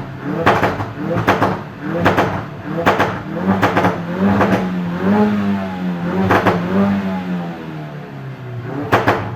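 Exhaust of a 2016 Ford Focus RS's turbocharged 2.3-litre EcoBoost four-cylinder, blipped to high revs again and again in quick succession, each blip with a sharp pop or crackle as the throttle lifts. The revving settles down near the end.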